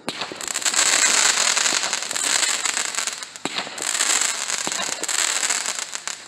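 Fireworks crackling: a dense, continuous run of rapid small pops and fizzing. It eases briefly about three and a half seconds in, then picks up again.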